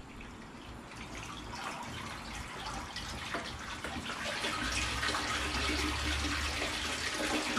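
Water from the tank's pump return pipe pouring and splashing into the water of a large plastic bait tank, getting louder about halfway through as the filter sock is worked off the pipe outlet.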